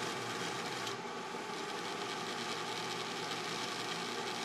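Small electric motor of an HO scale model locomotive running steadily while the engine is pinned in place on the track, giving an even whir.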